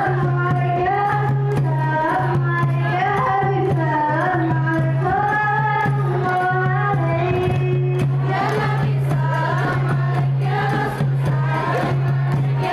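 Group of female voices singing a sholawat melody in unison, over a steady low hum. From about eight seconds in, fast Saman-style hand claps join the singing.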